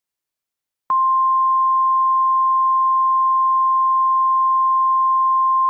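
Silence for about a second, then a single steady high-pitched tone starts suddenly and holds without change: a 1050 Hz NOAA Weather Radio-style alert tone that precedes an emergency broadcast message.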